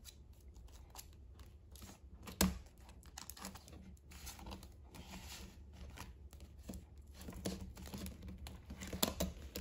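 Soft rustling of paper banknotes and crinkling of a clear vinyl cash envelope as bills are handled and slipped into it, with one sharp click a couple of seconds in.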